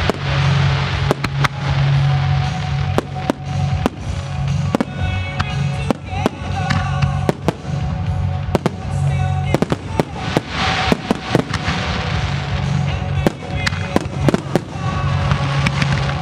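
Aerial fireworks shells bursting in a rapid, irregular series of sharp reports, over music.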